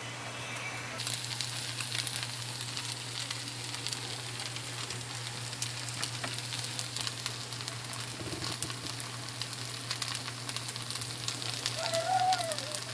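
Food sizzling and crackling in a hot pan or wok, picking up about a second in, over a steady low hum.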